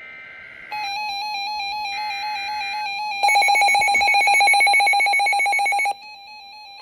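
Weather alert radios going off for a tornado warning. A short burst of warbling SAME header data tones is followed by a steady two-pitch warbling alert tone. A second data burst joins it, then from about three seconds in a louder, rapidly pulsing alarm sounds and cuts off about six seconds in.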